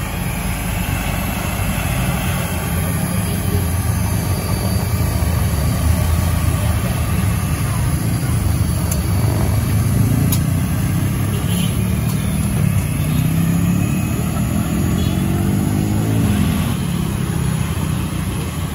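Street traffic: motor scooters and cars driving past with a steady engine rumble. About two-thirds of the way in, one engine rises in pitch as it speeds up.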